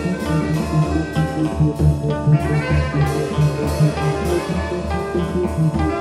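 Improvised experimental jazz from a small band: electric guitar and reeds over keyboard, congas and percussion. A steady low pulse runs at about two beats a second, with sustained notes and percussion strikes on top.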